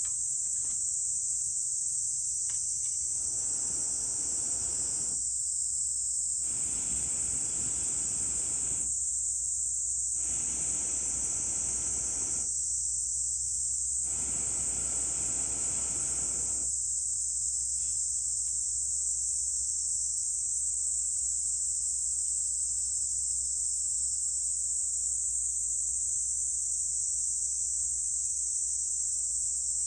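Four long breaths blown through a fire-blowing pipe into the campfire embers, each a rush of air lasting about two seconds with short gaps between, over a steady high-pitched drone of insects.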